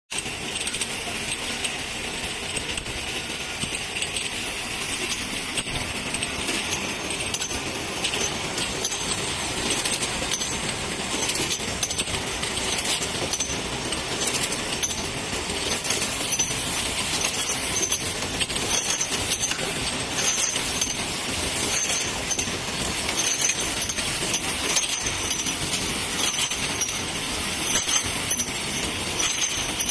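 Automatic eight-head bottle filling and capping machine running steadily, with a constant clatter of small bottles clinking against each other and against the machine's parts.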